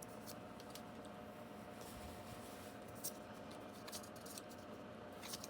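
Faint room tone with a few soft, scattered clicks and scrapes of trading cards being handled and slid through by hand.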